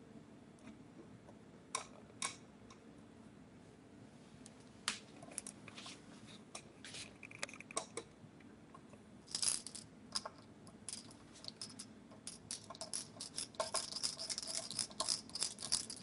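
Metal mounting screws being turned into a sheet-steel computer case by finger and screwdriver. Scattered light clicks and scrapes at first, then a quick run of small metallic clicks and scraping from about twelve seconds in as a screw is driven home.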